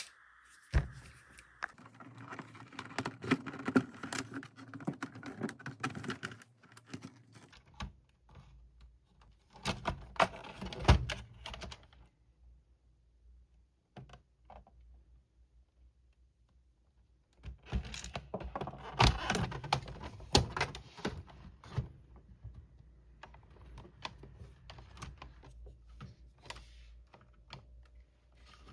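Hands and small tools clicking, tapping and rattling on the parts of a small electronic device with an LCD as it is taken apart. The sound comes in three busy spells with quieter stretches between.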